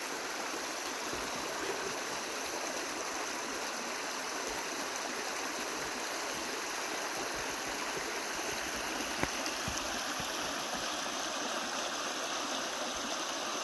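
A small woodland brook running steadily over rocks, a continuous even sound of flowing water.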